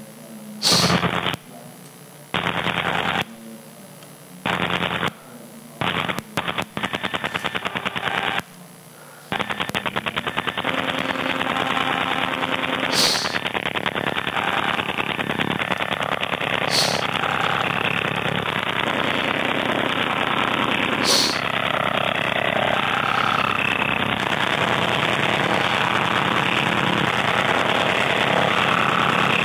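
Harsh synthesized sound generated live from an image by the SoundFumble plug-in for GIMP. It starts and stops in short blocks for about the first nine seconds, then runs on without a break as a dense, rapid rattling buzz, with a few sharp clicks on top.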